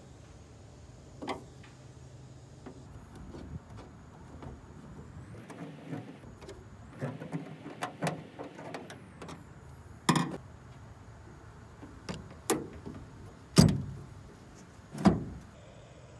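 Handling sounds as a black plastic rod-holder bracket is worked with a screwdriver on an aluminum jon boat: a few seconds of rustling and scraping, then a handful of sharp knocks a second or two apart, the loudest near the end with a short ringing tail.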